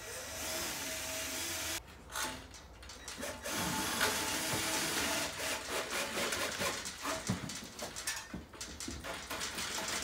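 Handheld drill driving a self-tapping screw into a metal door frame, the motor running for about two seconds, pausing, then running again for another two seconds, followed by scattered knocks and handling noise.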